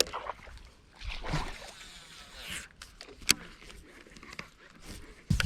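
Water sloshing against a small fishing boat, with soft handling knocks and one sharp click about three seconds in.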